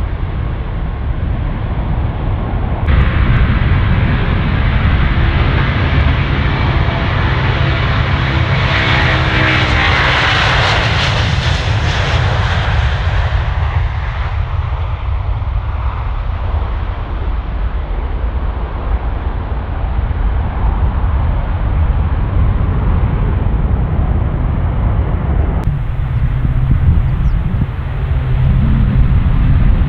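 Jet airliner engines at takeoff power, the roar swelling to its loudest about ten seconds in as the widebody twin-jet passes and rotates, then fading. Near the end the sound cuts to a Dash 8 Q400 turboprop taking off, with the steady hum of its propellers.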